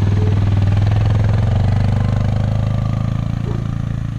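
Suzuki KingQuad ATV's single-cylinder four-stroke engine running as the quad drives off, steady in pitch and slowly fading as it moves away.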